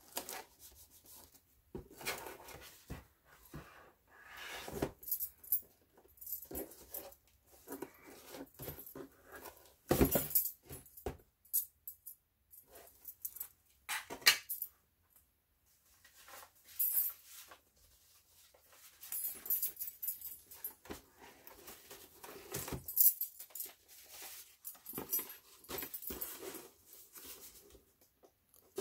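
Cardboard box and brown kraft paper being handled and folded: irregular rustling and crinkling with a few sharp clicks and knocks.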